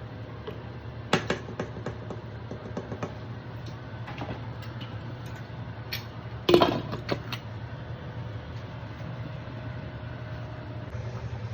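Cookware clatter: a few sharp knocks and clinks about a second in, and a louder cluster around six and a half seconds, over a steady low hum.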